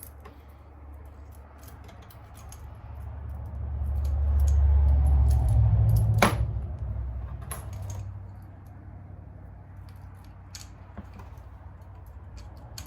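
Small loose metal engine parts, clutch springs and bolts, clinking and rattling as they are handled and set into a parts tray, in scattered sharp clicks. A deep rumble swells up and fades again around the middle.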